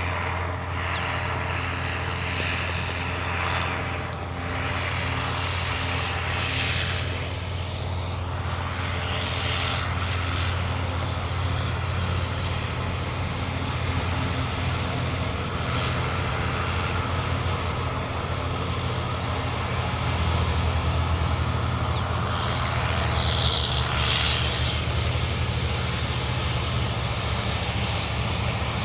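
A tractor engine running steadily with a low drone, with brief rushing noises over it now and then.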